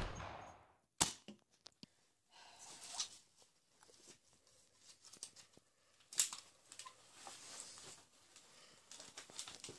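Sharp plastic clicks and clacks from a Nerf blaster being handled, with faint rustling between. The loudest click comes about a second in, another about six seconds in, and a few quick ones come near the end.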